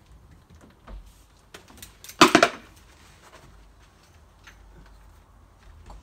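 A uPVC door, its hinge pins out, being handled and swung open: a few light clicks and knocks, then a loud, brief clatter of several knocks about two seconds in.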